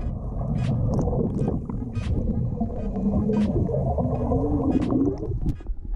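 Muffled rushing and gurgling of water with bubbling, heard through a GoPro in its waterproof housing while it is under water, cutting off about five seconds in.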